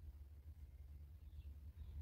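Near silence: a steady low rumble on the microphone, with a couple of faint high chirps late on.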